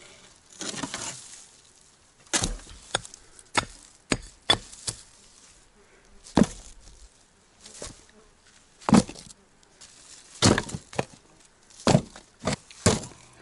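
Irregular clunks and thuds of stones, clods of earth and rusty sheet metal being handled and dropped by hand, about a dozen separate knocks, with a longer scrape about a second in.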